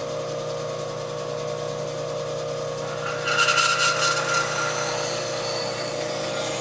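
JET bandsaw running with a steady motor hum while a small turned wooden box is fed into the blade to cut out a drawer. About three seconds in, the blade bites into the wood and the cutting grows louder and hissier for a second or so, then eases back to the running hum.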